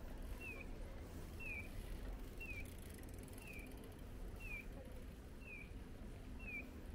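Japanese audible pedestrian crossing signal sounding its electronic bird-like chirp, a short falling tone repeated evenly about once a second, which tells walkers that the light is green. A low traffic rumble runs beneath it.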